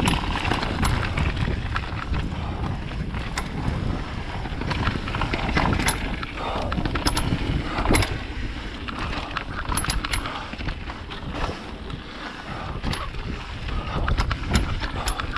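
Mountain bike riding down a wet trail: steady wind and tyre noise, with frequent sharp clicks and rattles from the bike over the rough ground.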